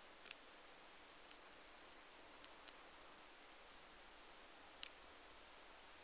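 Faint, sharp clicks of a steel lock pick working the pins inside a Union 5-pin padlock during single-pin picking: one near the start, two in quick succession about two and a half seconds in, and one just before five seconds, over a quiet hiss.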